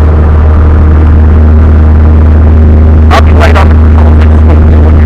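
Piper Tomahawk's four-cylinder Lycoming O-235 engine and propeller running loud and steady at high power, heard inside the small cockpit. A brief burst of voice cuts through about three seconds in.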